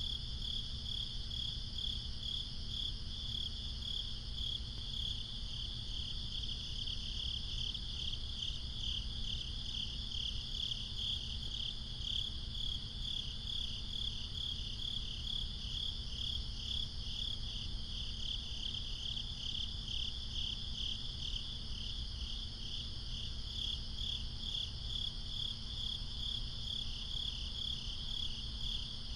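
Crickets chirping at night in a steady chorus of rapid, evenly pulsed high chirps, over a low steady rumble.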